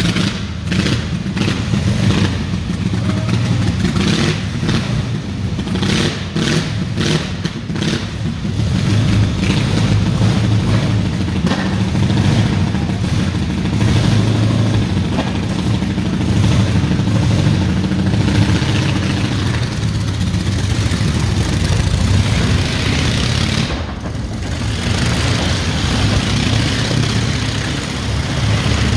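Vintage motorcycle engine running loud and being revved inside a wooden wall-of-death drum, with irregular popping and crackling for the first several seconds, then a steadier run as the bike circles the wall, briefly easing off near the end.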